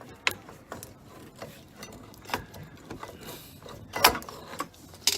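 Rear brake pads being slid out of the caliper bracket: scattered metal clicks, clinks and light scrapes, with the loudest knock about four seconds in.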